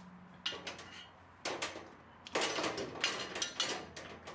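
Metal shelf clattering against a steel pegboard as it is unhooked and lifted off: a sharp rattle, another about a second later, then a longer run of metal-on-metal clanking.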